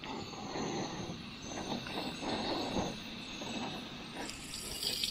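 A low, uneven rushing noise, then about four seconds in water poured from a plastic bottle starts splashing into a steel cooking pot on a portable gas stove.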